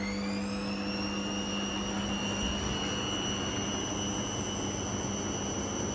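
Front-loading washing machine on its spin cycle: the motor's high whine rises in pitch as the drum speeds up, then levels off to a steady whine about two seconds in, over a steady low hum.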